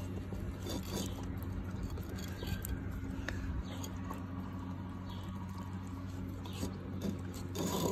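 Husky puppies licking out nearly empty clay bowls: wet lapping and the bowl scraping and knocking in scattered soft clicks, over a steady low hum. There is a brief louder sound near the end.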